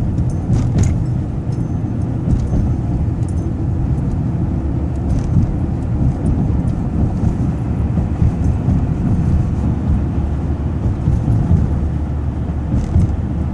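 Steady low rumble of road vehicles.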